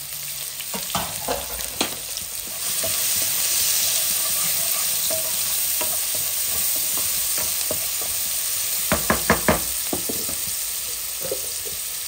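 Chopped red onions sizzling in hot oil in a nonstick pan as they are stirred with a wooden spatula; the sizzle grows louder about three seconds in. A quick run of four knocks of the spatula against the pan comes about nine seconds in.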